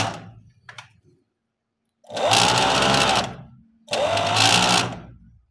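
JACK industrial overlock sewing machine running in short bursts as a shirt sleeve is stitched on. One run tails off just after the start, then two runs of about a second each follow, each rising a little in pitch as the machine speeds up.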